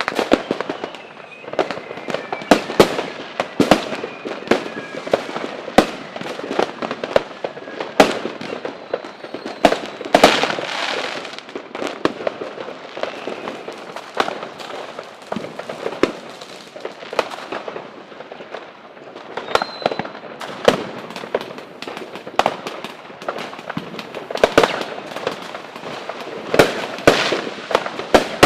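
Fireworks going off in quick succession: many sharp bangs with crackling between them, and a few faint falling whistles near the start and about two-thirds of the way through.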